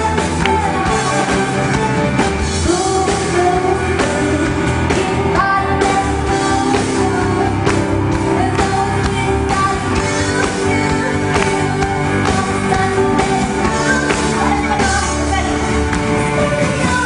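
Music with a singing voice over accompanying instruments, running at a loud, even level.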